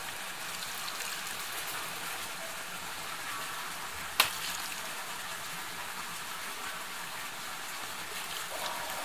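Water from a bamboo ladle trickling down through the stones of a suikinkutsu (a Japanese water harp: an upturned jar buried under gravel). Faint, short pinging tones from the drips in the jar sound over a steady hiss of water. A single sharp click comes about four seconds in.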